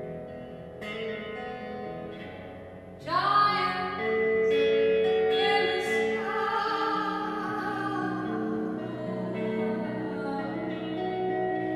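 A woman singing long held notes over sustained electric guitar, both ringing with the reverberation of a large empty warehouse. The voice comes in about three seconds in, sliding up into its first note.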